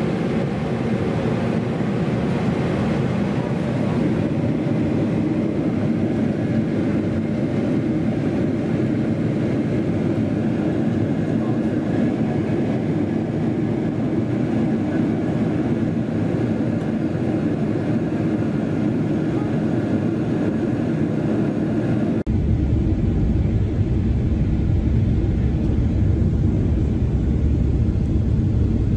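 Steady cabin noise of a Boeing 777-300ER on approach, heard from inside the cabin: the jet's engines and the airflow making an even rumble and hiss. About three-quarters of the way through it switches abruptly to a deeper, heavier rumble.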